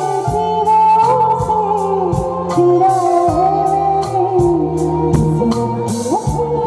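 A live stage band playing: a held, gliding lead melody over a bass line that steps between notes, with a regular drum beat.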